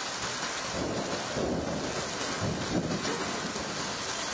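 Heavy monsoon rain pouring down in a steady hiss, with low rumbles of thunder about a second in and again near three seconds.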